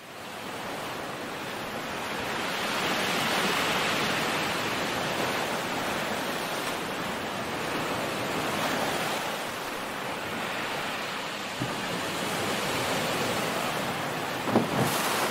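Surf sound effect: a steady wash of rushing water that fades in at the start, then slowly swells and ebbs.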